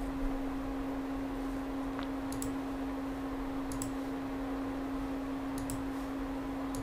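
A steady low electrical hum, with a few faint clicks from a computer mouse or keyboard spaced through it.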